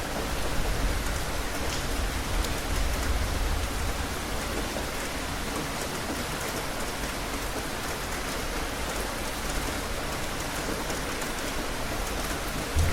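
Steady rain falling, an even hiss with fine individual drop ticks. A low rumble swells in the first few seconds and rises again sharply at the very end.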